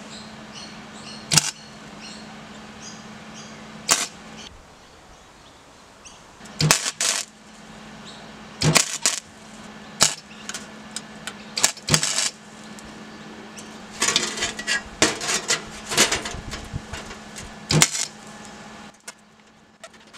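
MIG welder tack-welding a thin sheet-steel baffle plate for a homemade lawn-mower muffler: a run of short bursts of arc noise, most under a second, a few lasting a second or two, over a steady low hum that stops near the end.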